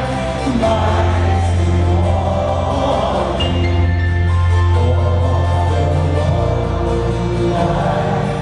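Live band music heard from the audience: piano, bass and drums playing with voices singing along.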